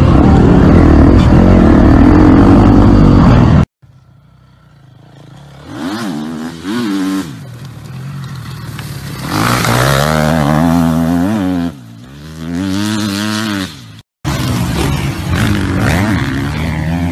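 Dirt bike engines revving in cut-together clips. First a loud, steady run from the rider's own bike, which cuts off sharply about four seconds in. Then a bike's engine rises and falls in pitch several times with the throttle, and after a brief break another bike revs the same way.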